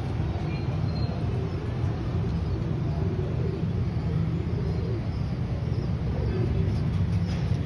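A steady low mechanical rumble and hum in the background, even throughout.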